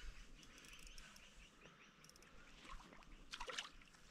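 Near silence: faint outdoor ambience with a few soft, brief ticks and rustles.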